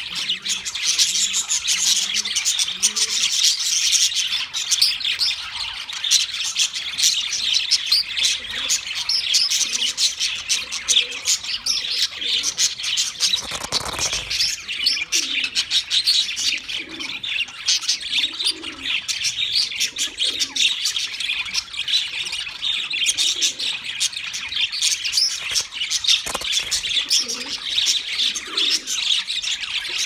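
A flock of budgerigars chattering and warbling without pause, a dense mass of many overlapping high chirps.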